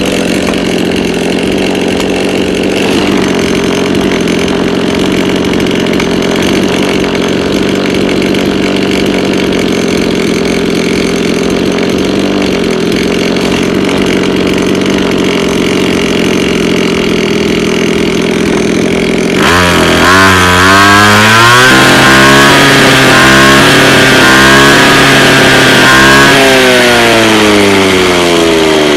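Small two-stroke grass-cutter engine running steadily for most of the stretch. About two-thirds of the way in it is revved, its pitch rising and falling with throttle blips, and near the end the revs fall away.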